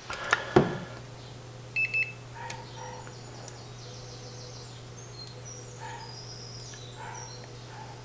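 Handheld infrared thermometer beeping twice about two seconds in as it takes a reading, over the steady low hum of a small USB-powered toroidal fan (a converted PC fan) blowing air through a box of frozen cold packs. A single knock sounds near the start.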